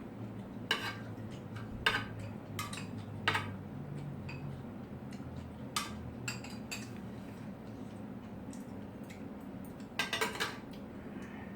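Cutlery clinking against dishes while eating: scattered single clicks, then a quick cluster of several near the end, over a steady low hum.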